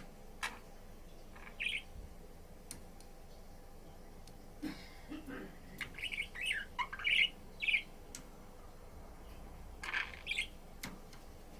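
Pet budgerigar chirping in short, scattered calls, with a quick run of chirps in the middle and a couple more near the end. A few faint clicks fall between them.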